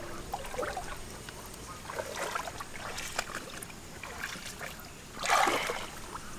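A hand groping through shallow water, with small trickling and sloshing sounds and a louder splash about five seconds in.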